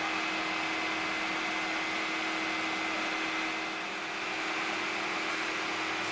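Steady mechanical hum and hiss, with a low steady tone and a thin higher whine held unchanged throughout.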